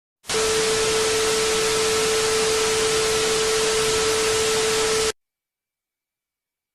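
Loud static hiss with a steady mid-pitched tone running through it, starting abruptly and cutting off sharply after about five seconds.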